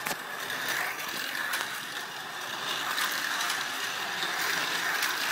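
Toy slot cars running on a plastic track: the steady whir of their small electric motors, with small ticks and rattles from the cars in the track slots.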